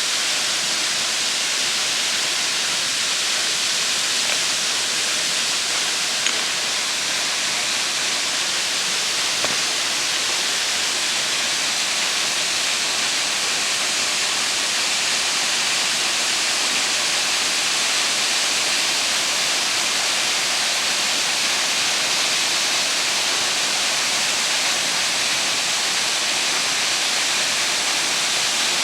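Waterfall pouring steadily: a constant rushing hiss of falling water that never changes in level.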